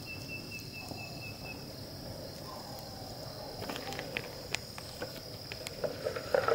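A steady high-pitched insect chorus, with a pulsing high trill that stops about a second and a half in. Scattered light clicks and knocks come through in the second half.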